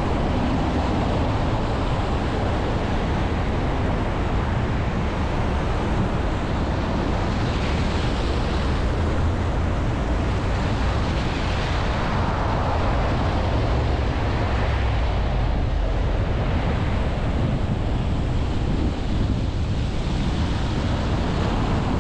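Wind rushing over a car-mounted exterior microphone, mixed with steady tyre and road noise from a car driving on wet city streets. The rush swells and eases a few times.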